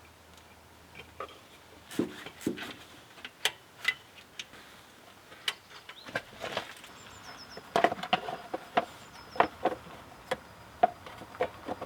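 Irregular clinks and knocks of hand tools and parts during work on a car engine's timing belt and water pump. A few sharp knocks come about two seconds in, and a busier run of clinks follows from about eight seconds.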